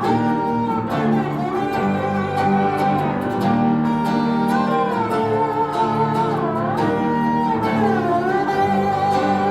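Instrumental break of a live band: guitar plays a steady accompaniment under a sustained lead melody that slides between notes.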